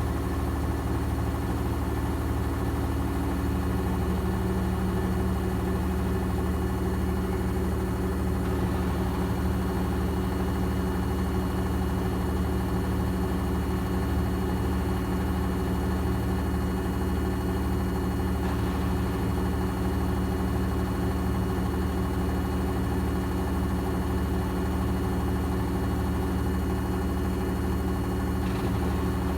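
Gorenje washing machine drum spinning at a steady high speed in the final spin, a constant motor hum with a few steady tones.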